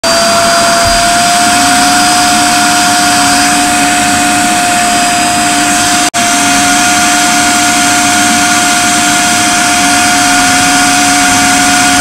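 STARQ 1000 W wet and dry vacuum cleaner running, its clear plastic upholstery nozzle drawn over a car's fabric headliner: a steady whine over rushing air, broken off briefly about six seconds in.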